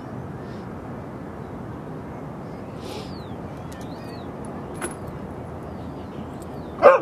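Steady low outdoor background with a few faint bird chirps midway; near the end a Siberian husky gives a loud, sudden vocal call that wavers in pitch.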